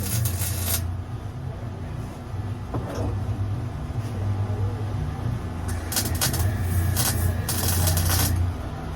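An engine running steadily at a low pitch, with short bursts of hiss at the start and a few more near the end.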